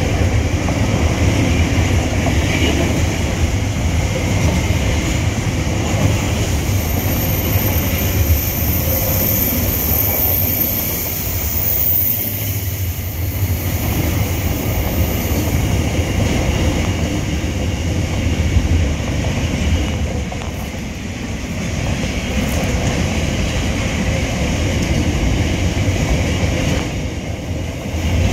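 Loaded container wagons of a freight train rolling past at close range: a steady rumble with the clatter of steel wheels over the rails, going on throughout.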